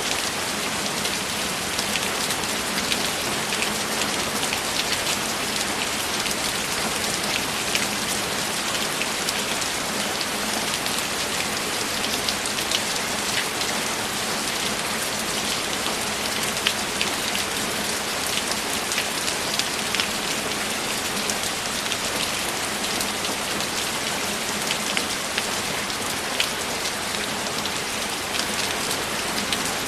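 Steady rain falling, with many individual drops striking sharply and irregularly over a constant wash.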